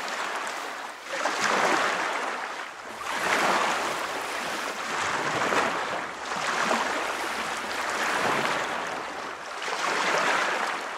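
Waves washing: a steady hiss of moving water that swells and fades every couple of seconds.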